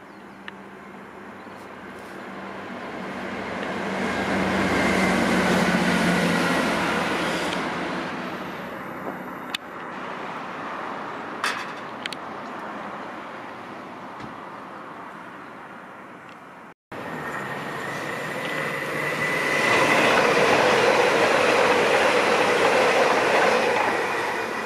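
Two trains passing in turn. First, a GWR Class 165 diesel multiple unit, its sound swelling for several seconds with a low engine hum and then fading as it draws away. Then a GWR Class 802 intercity train sweeps past, louder, with a steady high whine over the rush of wheels and air.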